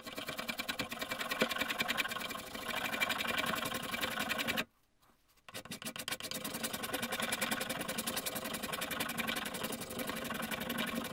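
Stanley spokeshave shaving padauk in quick, even, repeated strokes. The strokes stop for under a second about five seconds in, then carry on.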